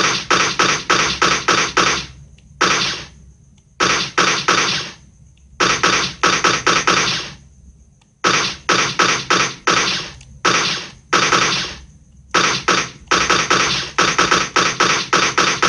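Automatic-gunfire sound effect: bursts of rapid shots, about five or six a second, some shorter and some longer, separated by brief pauses. Near the end the firing runs on without a break.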